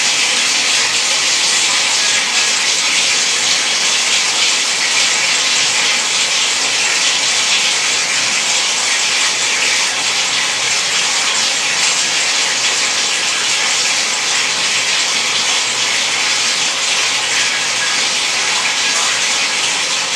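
Water running steadily from a tap, a constant hiss, with hair being rinsed under it.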